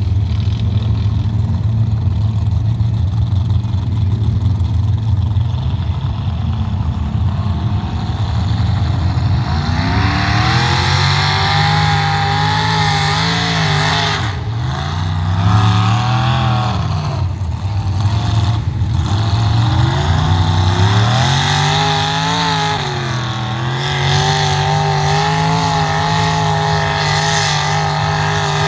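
Big V8 engine of a lifted mud-bog pickup, running at a low, steady rumble, then from about ten seconds in revving hard as the truck plows through deep mud. The pitch climbs and falls again and again as the engine works under load, with wheel-spin in the mud.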